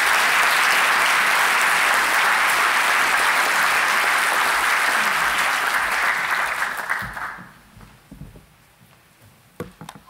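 Large audience applauding, the clapping fading away about seven seconds in. A couple of soft knocks follow near the end.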